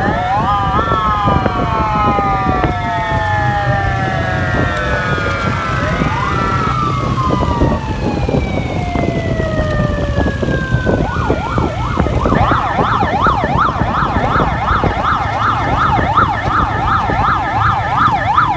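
Police motorcycle siren. It rises quickly and falls away slowly in long wails, then about twelve seconds in switches to a fast up-and-down yelp. The motorcycles' engines run steadily underneath.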